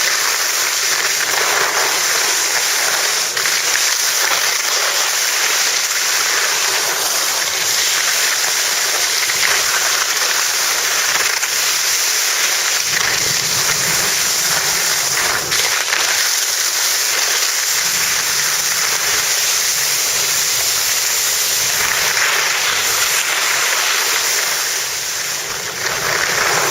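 Steady, loud rushing hiss of wind over the microphone and skis scraping on packed snow while skiing downhill.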